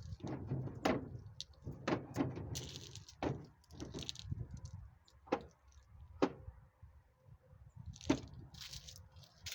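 Metal hand tools clinking and knocking as a socket and ratchet are picked out and handled, a series of irregular sharp clicks about a second apart.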